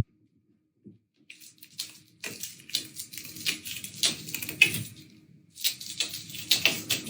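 Water splashing and sloshing in short, irregular bursts, with a brief pause about five seconds in.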